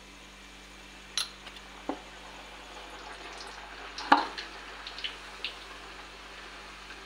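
Puri frying in hot oil in a kadhai: a steady sizzle that grows a little partway through. Sharp clinks and knocks of utensils cut in, the loudest a knock about four seconds in.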